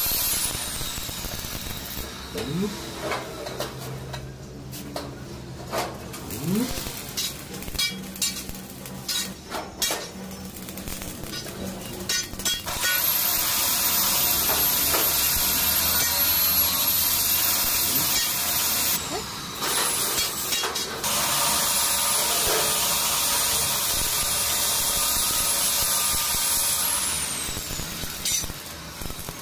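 Stick (arc) welding on mild-steel angle iron and sheet: the arc crackles and hisses in short bursts over the first dozen seconds, then burns steadily for about fourteen seconds in one long bead. A thin high whine rising and falling in pitch runs above it.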